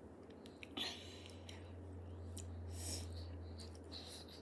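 Faint handling of a plastic squeeze bottle of strawberry jam being turned upside down: a few soft clicks and short rustles over a low steady hum.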